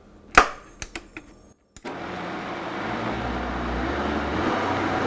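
A few sharp knocks as the blender lid is handled and pressed on, then, after a brief cut, a Vitamix blender motor running at speed, puréeing a thick mash of fermented cayenne peppers, pineapple and brine into hot sauce; a dense steady whirring that builds slightly.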